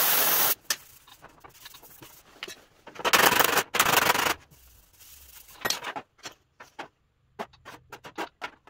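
Compressed-air blow gun blasting the freshly heat-shrunk spots on the steel tailgate panel to quench them: a steady hiss that cuts off just after the start, then two more short blasts about three seconds in. Light clicks and taps of tools being handled follow.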